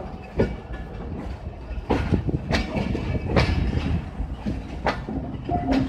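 Passenger train's coaches running on the rails as it pulls out of the station, the wheels knocking over rail joints at uneven intervals over a steady low rumble.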